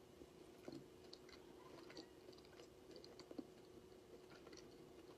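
Faint chewing and mouth clicks of a person eating a soft frosted cookie, over a faint steady hum.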